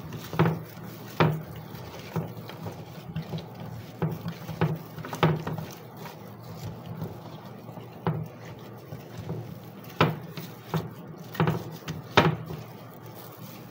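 Chopped vegetables being tossed by a gloved hand in marinade in a glass baking dish: wet squelching with irregular sharp clicks and knocks as the pieces hit the dish.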